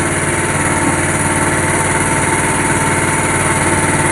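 Engine running steadily aboard a fishing boat, an unchanging hum.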